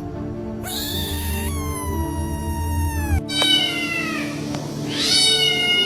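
Domestic cat meowing several times in a row, long calls that slide down in pitch, the longest drawn out for about two seconds, over background music.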